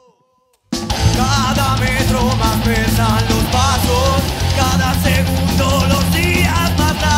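Recorded punk-metal song: after a short, nearly silent break with a faint held note, the full band comes back in loud and abruptly under a second in and plays on.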